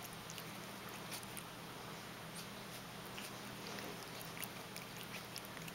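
Cat chewing and tugging at a lampshade's fabric fringe: faint, irregular little clicks and rustles, over a steady low hum.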